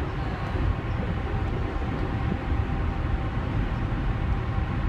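Steady low rumble on the deck of a DFDS Seaways ferry under way: the drone of the ship's machinery with wind buffeting the microphone, and a faint steady hum above it.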